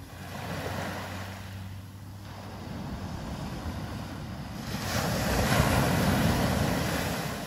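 Ocean surf washing up a sand beach. A small wash comes in during the first couple of seconds, then a larger wave breaks and rushes up the sand about five seconds in, the loudest part, before it fades.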